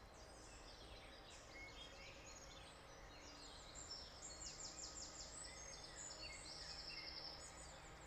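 Morning bird chorus, faint: several birds singing over one another with quick chirps, whistled glides and fast high trills, the densest trills coming about halfway through and again near the end.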